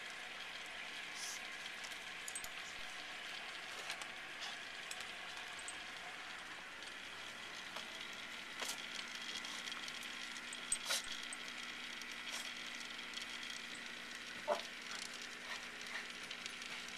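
Steady fizzing hiss of an aquarium air pump and air stone bubbling in the tank, with a few short taps, the loudest about eleven and fourteen seconds in.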